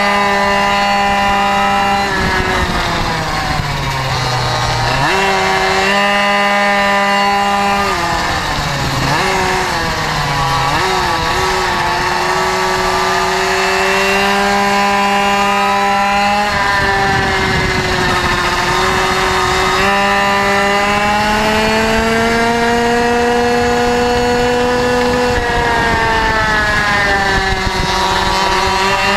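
Onboard sound of a racing minimoto's small two-stroke engine, held at high revs on the straights. The pitch falls several times as the throttle is closed for corners, then climbs back.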